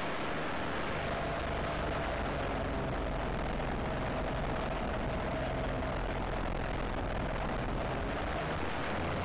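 Rotax 582 two-cylinder, two-stroke, water-cooled engine and propeller of a Chinook ultralight running steadily while the aircraft taxis on grass, heard from inside the cockpit.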